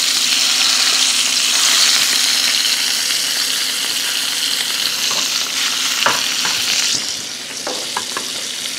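Sea scallops sizzling in hot oil in a frying pan as they sear and brown, a steady dense hiss. About seven seconds in the sizzle drops in level, and a few light scrapes of a wooden spoon stirring risotto in a pot come near the end.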